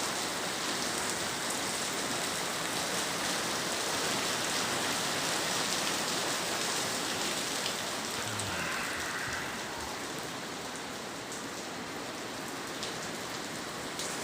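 Steady rain falling and pattering on hard surfaces, with individual drops ticking through the hiss.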